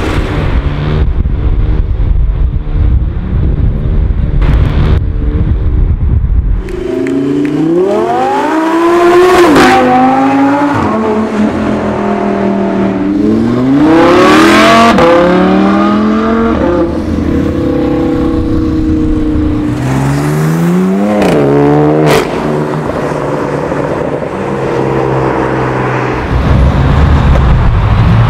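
Sports car engines accelerating hard past the roadside: a deep rumble at first, then three runs where the engine pitch climbs steeply and drops back at each gear change, and a deep rumble again near the end.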